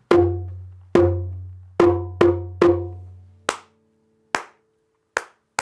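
Djembe struck with the bare hand, about nine strokes. The first few are deep bass strokes that ring on low. Then come sharper, shorter strokes spaced further apart.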